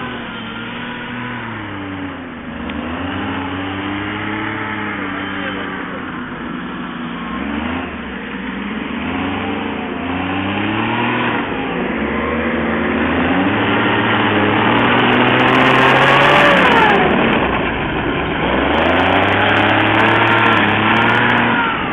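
Armoured military vehicle ('tin can') driving by, its engine note repeatedly climbing and dropping as it revs and shifts. It grows louder to a peak about two-thirds of the way through, with a falling pitch there, and stays loud to near the end.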